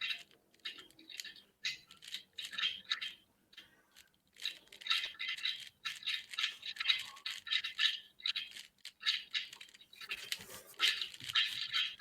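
A Rubik's Cube being speed-solved: fast runs of clicking and clacking as its plastic layers are turned, with a brief pause about four seconds in.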